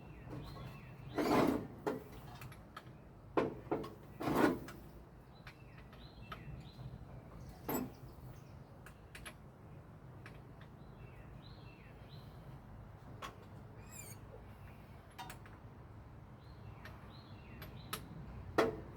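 1965 Ford Thunderbird engine being turned over by hand with a breaker bar, spark plugs out: a few short knocks and scrapes of the wrench and turning engine, with faint ticks and small squeaks between them. The engine turns more stiffly than it should, which the owner fears is a main or rod bearing stuck to the crank.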